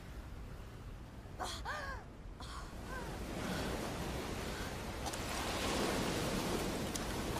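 A woman's short sobbing gasp about a second and a half in, then sea water lapping and sloshing, growing louder from about three seconds in.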